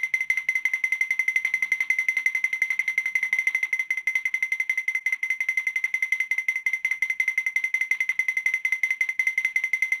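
A cartoon sound effect: a single high ringing tone repeated in rapid, even pulses.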